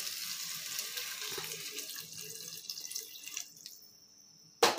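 Hot water poured in a stream from a steel vessel into a pressure cooker of rice and vegetables, splashing for about three seconds and then tapering off. A single sharp knock near the end.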